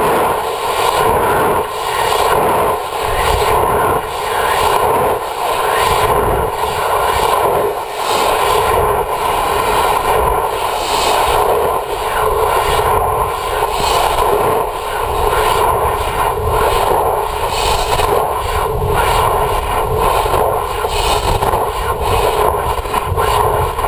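Steady rushing drone of the sounding rocket payload in flight, carried as vibration through the structure into the camera's aluminium casing, swelling and dipping about once a second.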